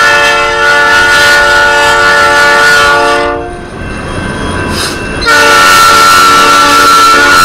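Diesel locomotive air horn sounding for the grade crossing. One long blast of several notes sounded together ends about three and a half seconds in, and a second long blast starts just after five seconds in and is still going at the end.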